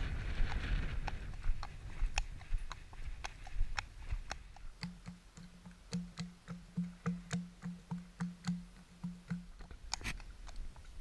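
Horse's hooves clip-clopping on a tarmac road at a walk, in a steady run of sharp knocks. For a few seconds in the middle a low pulsing tone repeats about three times a second alongside the steps.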